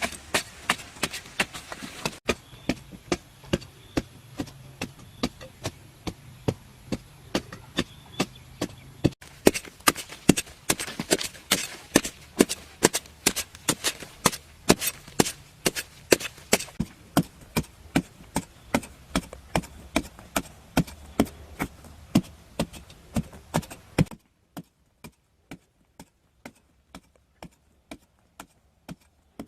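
Rapid, regular strikes of a hand tool chopping, about two to three a second, hitting wood or earth. About 24 seconds in the background noise drops away while the strikes go on.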